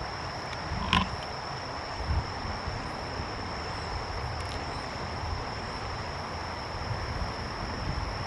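A steady, high-pitched insect drone over a continuous hiss, with one sharp click about a second in.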